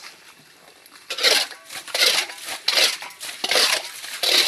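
A series of five harsh scraping or crunching strokes, about one every two-thirds of a second, starting about a second in.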